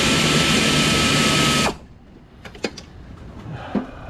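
A power tool's motor running steadily with a thin whine that sags slightly in pitch while it spins out an 8mm screw. It stops abruptly under two seconds in, followed by faint clicks of tool handling.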